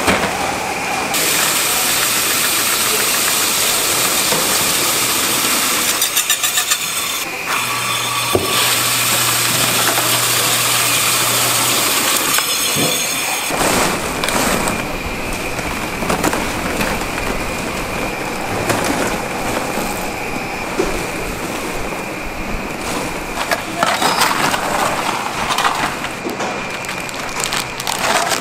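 Steady running noise of factory machinery and electric fans, with slabs of peanut-rice snack sliding off a conveyor onto a steel table. The crunchy pieces clatter as gloved hands break them up and scoop them into plastic bags.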